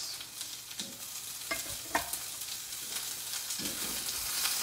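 Carrots, ginger and garlic sizzling in hot oil in a preheated wok, a steady hiss, with a spatula knocking and scraping against the wok a few times as they are stirred.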